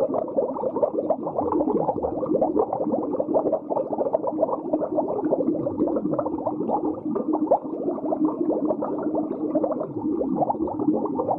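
Muffled underwater bubbling: a continuous dense stream of bubbles gurgling, with no high sounds.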